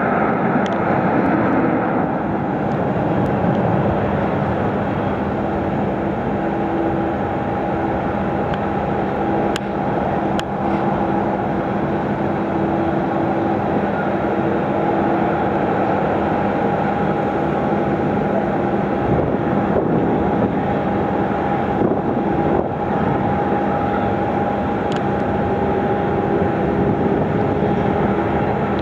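Jet airliner engines running at low taxi power: a steady, even rumble with several held whining tones on top, unchanging throughout.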